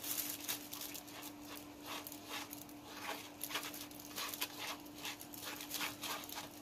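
Plastic spoon stirring and scraping copper glitter pigment in a small disposable bowl, in short scratchy strokes about two or three a second. A faint steady hum runs underneath.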